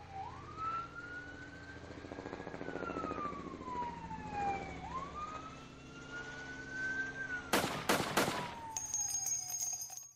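Police siren wailing in two slow sweeps, the pitch rising quickly and then falling gradually, over a steady low hum. About seven and a half seconds in come three sharp, loud bangs, followed by a rapid crackle with a high whine that cuts off at the end.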